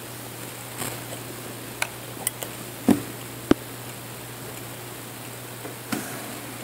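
Small metal parts and wires of a homemade battery-powered switch circuit clicking and tapping irregularly, about six times, the two loudest near the middle, over a steady low hum.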